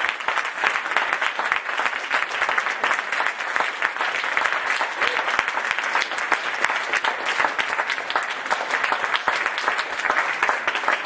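An audience clapping steadily: dense, continuous applause.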